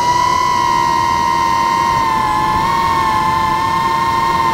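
DJI FPV drone's motors and propellers whining steadily in flight, two close pitches beating against each other and wavering slightly as the motor speeds shift.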